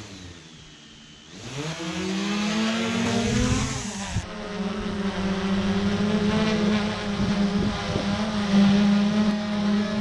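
DJI quadcopter drone's motors and propellers spinning up about a second in, a whine rising in pitch, dipping briefly, then holding a steady hum.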